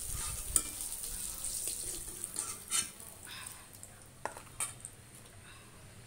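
Metal spatula scraping and clinking in a wok as fried eggplant pieces are lifted out, over the sizzle of hot mustard oil. A few sharp clinks come about half a second in, near three seconds and twice around four and a half seconds, and the sizzle grows fainter in the second half.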